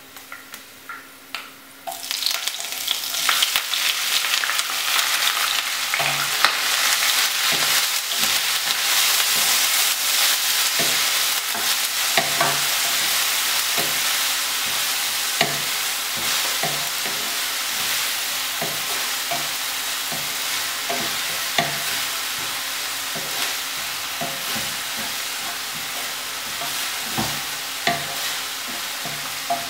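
Crushed shallots hitting hot oil in a non-stick kadai with frying coconut pieces: a sudden loud sizzle about two seconds in that slowly eases. A wooden spatula scrapes and knocks against the pan as they are stirred.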